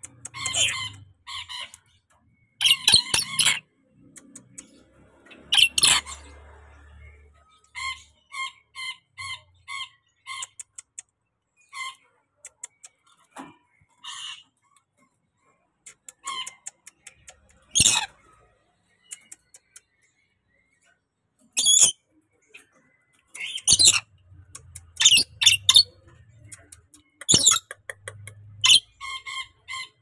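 A caged lorikeet calling: loud, harsh screeching squawks in clusters, and a run of quick, short chirping notes, about two a second, a third of the way in.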